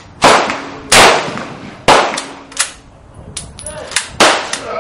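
Gunshots on a firing range from several guns going off in quick succession: about six sharp cracks, four of them loud, some less than a second apart, each with a short echo tail.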